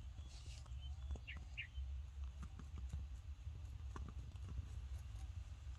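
Dry leaves crackling and small twigs clicking on the ground, with two short high chirps about a second and a half in, over a steady low rumble.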